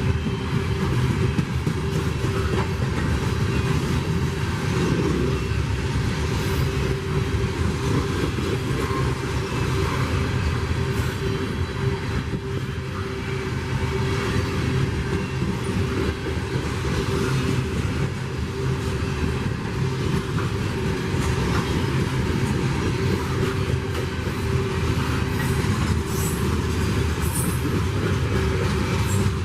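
Freight train rolling past: a steady low rumble of wheels on rail that runs unbroken, with a faint steady tone over it and a few light high clicks near the end.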